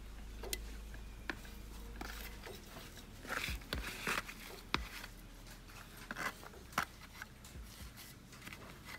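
Metal hand trowel scooping and scraping potting soil against a plastic pot, with hands pressing the soil down: scattered soft clicks and short gritty scrapes, busiest about three to five seconds in.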